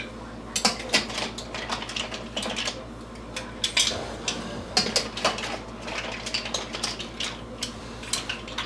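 Serving spoon clinking and scraping in a pot of steamed mussels as the mussels and broth are ladled onto a plate, with irregular clinks of the spoon against the pot and the shells.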